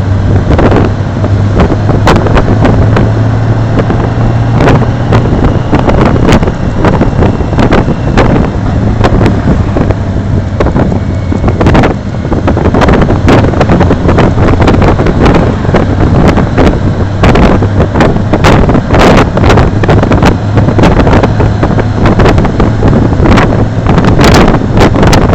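Touring motorcycle riding at a steady cruise: a constant low engine hum under heavy wind buffeting on the microphone, with frequent gusty crackles.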